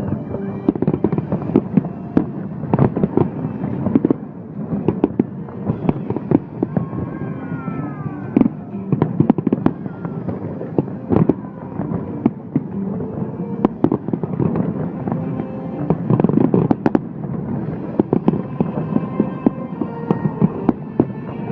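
Fireworks display: a continuous run of sharp bangs and crackling reports, with a few whistling glides about eight seconds in.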